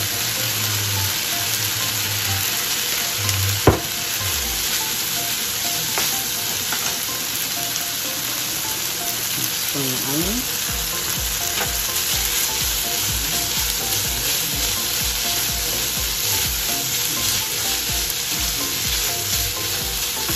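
Fried rice with peas and carrots sizzling in oil in a nonstick skillet, stirred with a slotted spatula. One sharp tap about four seconds in, and a run of steady stirring strokes from about halfway through.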